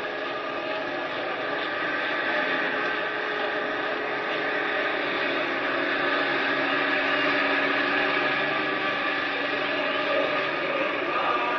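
A steady droning hum of many held tones, growing slightly louder over the first half.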